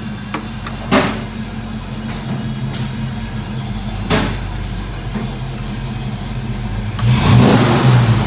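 Steady mechanical hum from a running motor, with sharp knocks about a second in and about four seconds in, and a louder rush of noise from about seven seconds in.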